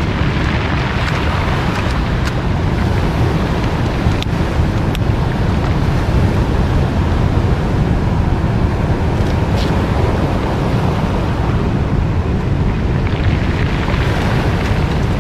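Surf washing onto a pebble beach, with wind buffeting the microphone in a steady low rumble. A few faint clicks come through now and then.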